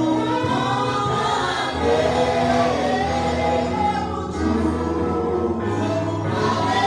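A gospel choir singing in church over steady held low accompaniment notes.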